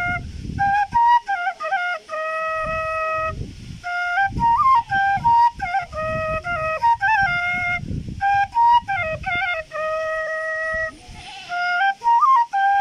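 Bamboo bansuri flute playing a folk melody solo, quick ornamented runs between a few long held notes, with a short pause near the end before the tune resumes. A low rumble sits under some phrases.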